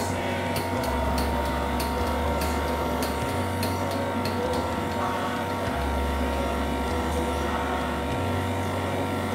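A steady mechanical hum, like a small motor running, with a shifting low rumble beneath it. A run of light, evenly spaced clicks sounds over the first three seconds.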